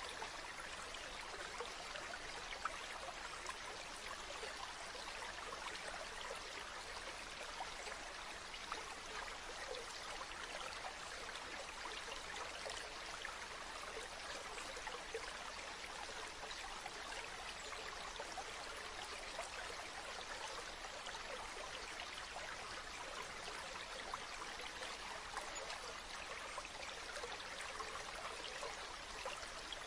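Stream flowing steadily: an even rush of water with many fine trickles and splashes.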